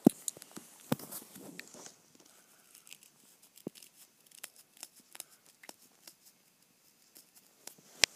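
A cat moving on a woollen blanket: fabric rustling and scratching, with a run of small sharp clicks and crackles. A loud click comes at the very start, another about a second in, and one more near the end.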